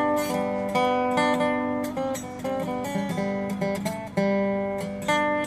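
Background music: acoustic guitar, chords strummed and notes picked.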